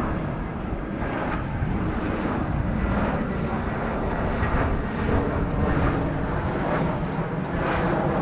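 Airbus A320 jet airliner arriving to land, its engines giving a steady jet noise with a heavy low rumble.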